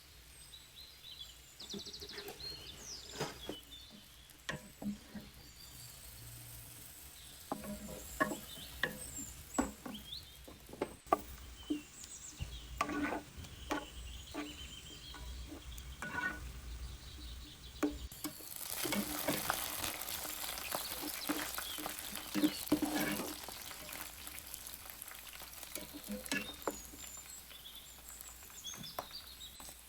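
Food frying in a pan while a spoon stirs it, scraping and clinking against the metal many times. The sizzle grows louder for a few seconds past the middle.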